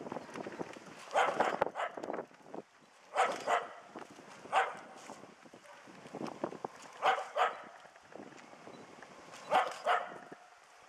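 A small dog barks at a brown bear during a hunting-dog bear test. About nine sharp barks come singly and in quick pairs, every two to three seconds.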